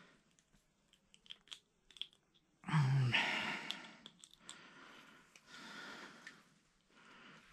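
Close handling noises from fingers working a small ice-fishing jig: scattered small clicks and crinkles, with one louder rustle about three seconds in and softer rustling later.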